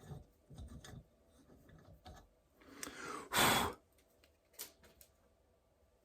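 A person's loud breathy exhale about three and a half seconds in, among faint scattered clicks and rubs.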